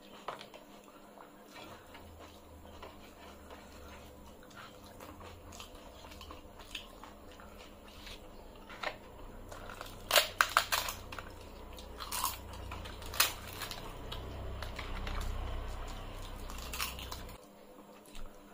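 Close-up eating sounds of rice and curry eaten by hand: chewing and fingers working the food. About ten seconds in comes a quick cluster of sharp crunches as a fried papad is broken and bitten, with a few single crunches after.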